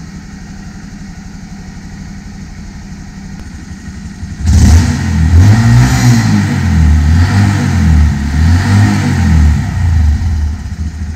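2019 Honda Monkey 125's single-cylinder four-stroke engine running through its stock exhaust, warm at idle. About four and a half seconds in it is suddenly revved hard, its pitch rising and falling several times, then it drops back toward idle near the end.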